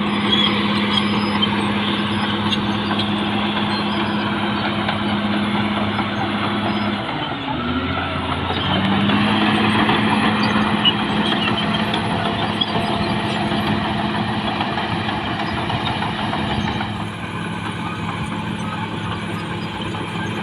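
Caterpillar D6R XL bulldozer's diesel engine running steadily under load. About seven seconds in, the engine note drops for a moment, then climbs back to the same steady pitch about two seconds later.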